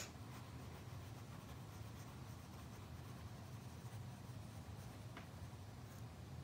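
Faint scratching of a small wooden figure being pushed slowly through fine sand in a wooden sandbox, with a soft click at the start and a faint tick about five seconds in.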